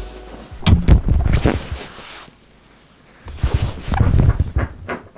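Handling noise close to the microphone: dull bumps and fabric rubbing as the camera is moved over the quilted mattress topper. It comes in two loud bursts, about a second in and around four seconds in, with a short quiet spell between.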